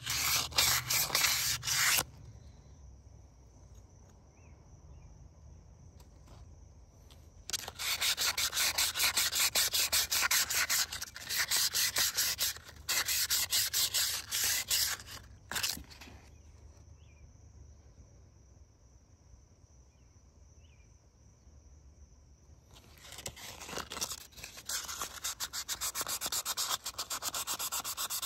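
Sandpaper rubbed by hand in fast back-and-forth strokes inside the metal bore of a VW TDI vacuum pump housing, smoothing out scratches where the rotor vanes run. The rasping comes in three spells, with pauses of several seconds between them.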